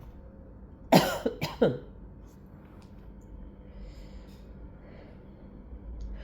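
Two short stifled sneezes, about half a second apart, about a second in, each falling in pitch.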